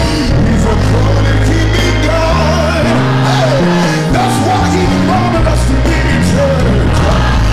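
Live gospel song: a lead singer and choir singing over a band, with a bass line stepping from note to note underneath.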